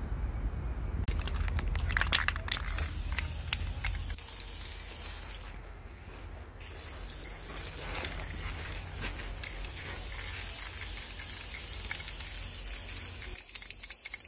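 Aerosol spray paint hissing from a can as a Ford 9-inch rear axle housing is painted, in two long bursts with a short pause about five and a half seconds in.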